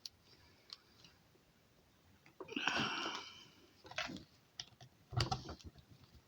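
Handling noises from a multimeter and its test leads: scattered sharp clicks and knocks as the lead plugs are pushed into the meter's jacks, with a short rustling hiss about two and a half seconds in.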